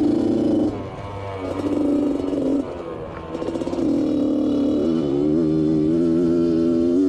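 Yamaha YZ85 85cc single-cylinder two-stroke engine powering a quad while it is ridden, revving up and dropping back twice, then climbing and holding steady revs from about five seconds in.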